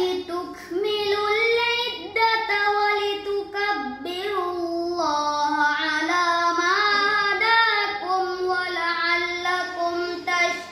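A boy chanting Quranic verses in Arabic in tartil style, a single melodic voice holding long notes that slide up and down in pitch, with short breaks between phrases.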